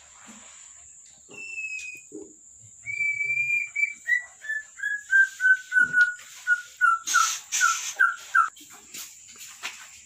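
An animal calling in a series of short, high whistled notes, about three a second, falling steadily in pitch before stopping, over a steady high-pitched hum.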